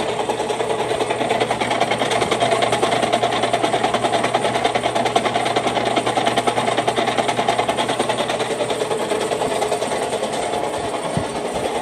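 A concrete floor grinder running steadily with a low hum and a fast, even flutter.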